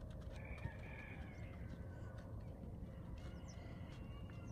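Horses' hooves stepping softly on dry dirt over a low, steady wind rumble, with a few faint, thin, high animal calls.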